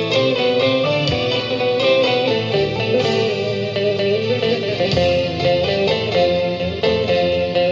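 Music led by guitar, a melody of held notes over a steady accompaniment.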